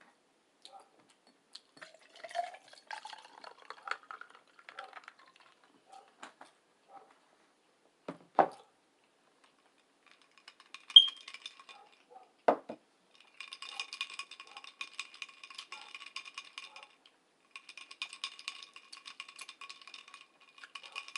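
Mukbang eating sounds: chewing tofu and vegetables, with a fork or spoon clinking and knocking on the dish. The loudest moment is a sharp clink about eleven seconds in. From about thirteen seconds on, a dog barks rapidly and without a break in the background, with a short pause partway.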